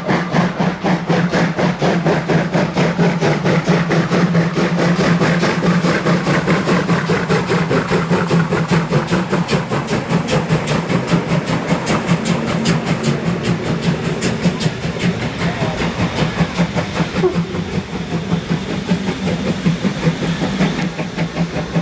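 A train running close by: a steady low drone under a rapid, even clicking that keeps up throughout.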